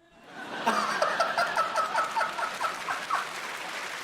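Studio audience laughing and applauding after a punchline, with one person's loud, rapid ha-ha-ha laugh, about four pulses a second, standing out over the crowd for a couple of seconds before the applause carries on.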